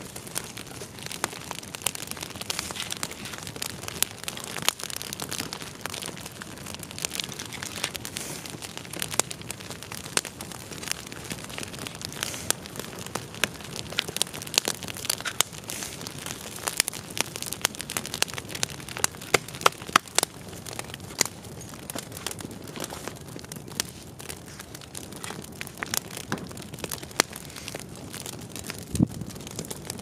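Campfire of dry deadwood sticks crackling and popping, with many sharp irregular snaps over a steady hiss of burning.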